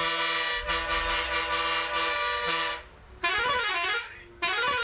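A bus's air horns sounding: a long, steady multi-note chord broken twice for an instant, then a warbling musical horn whose pitch swings up and down, in short blasts starting about three seconds in.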